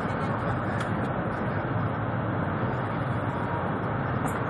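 Steady rumble and rush of a high-speed train running at speed, heard from inside the passenger cabin.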